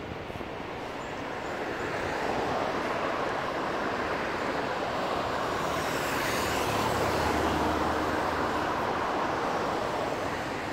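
Road traffic passing on a city street. The noise swells to a peak about six to seven seconds in as a vehicle goes by close, with a low engine hum at its loudest, then eases.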